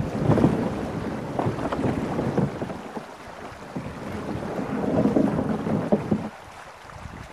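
Wind buffeting the microphone in uneven low rumbles, with a few short knocks; it swells about half a second in and again around five seconds in, then eases near the end.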